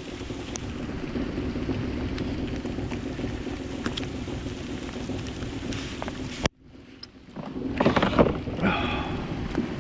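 A boat motor running steadily with wind noise. It cuts off suddenly about six and a half seconds in, and irregular knocks and handling noises follow near the end.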